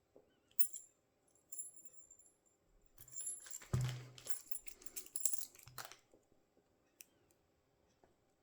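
Small metal lock hardware handled on a hard surface: a couple of sharp clicks, then a dense metallic clatter and jangle with a high ringing for about three seconds from the middle on.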